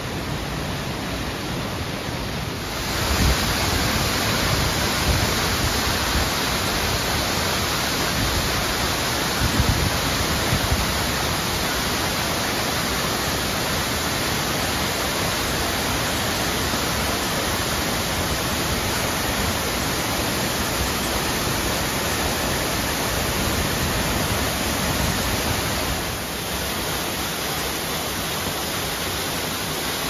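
Waterfalls rushing, a steady wash of falling water. It gets louder about 3 seconds in, close below a large fall, and drops back a little near the end.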